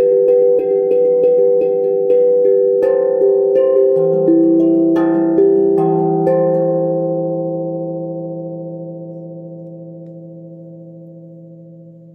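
Steel tongue drum struck with mallets: a quick run of ringing notes, about three a second, that slows after about three seconds; the last notes, about six seconds in, are left to ring and fade out slowly.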